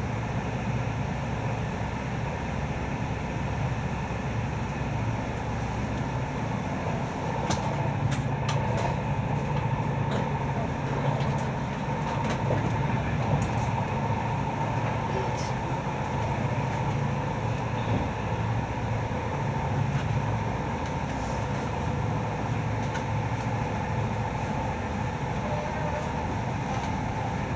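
Passenger train running at speed, heard from inside the carriage: a steady low rumble of wheels on rails with a faint steady whine above it, and a few light clicks now and then.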